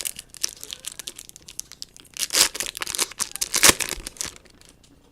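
Foil wrapper of a 2015 Topps Chrome baseball card pack being torn open and crinkled: a rapid run of crackles, with the loudest tears about two and a half and three and a half seconds in, dying away near the end.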